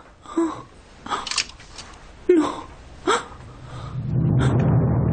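A woman sobbing in four or five short, catching gasps, some with a brief whimpering tone. Music swells in near the end.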